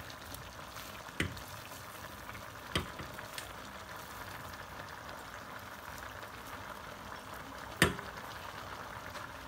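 Pot of vegetable soup sizzling on the stove, a steady hiss, with three sharp clicks about a second in, near three seconds in and near the end, the last the loudest.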